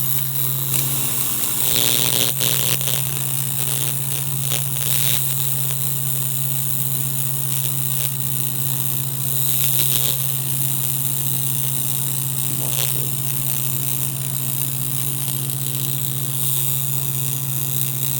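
Steady electrical hum of a welding machine with a hiss over it and several short crackling bursts.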